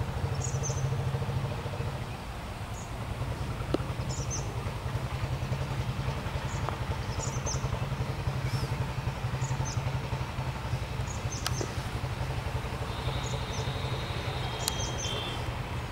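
Birds chirping in short high calls, repeated every second or so, over a steady low rumble.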